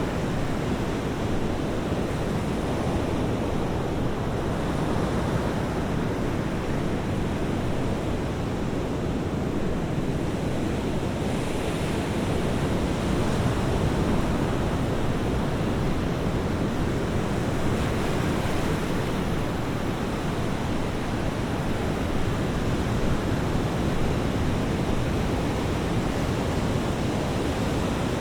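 Ocean waves breaking and washing on a beach: a steady rush of surf that swells and eases slowly.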